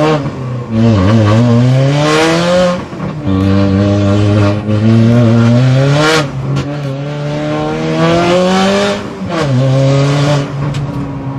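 The Alfa Romeo 4C's turbocharged 1.75-litre four-cylinder engine, in a 350 bhp Abarth 595 build, accelerating hard through the gears. The engine note climbs in pitch, drops at each upshift and climbs again, with three upshifts about three seconds apart.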